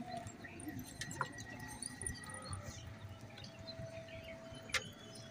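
Quiet outdoor ambience with faint bird chirps, a couple of light clicks or knocks, and a faint steady tone that comes in about halfway through.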